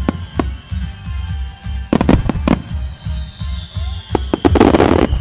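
Aerial firework shells bursting in a quick series of sharp bangs over music with a steady low beat. Near the end many small bursts merge into dense crackling.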